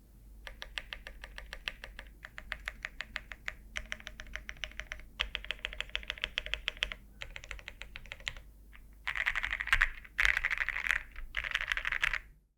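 Typing sound test on a JRIS80 custom TKL keyboard with lubed and filmed SP-Star Meteor White linear switches, a polycarbonate plate and MT3 double-shot ABS keycaps. Runs of fast keystrokes come in bursts with short pauses, and the last three bursts near the end are denser and louder. The typing cuts off suddenly at the very end.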